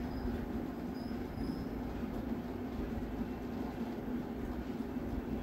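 Steady hum and rumble of a heavy-duty tailoring sewing machine's electric motor running.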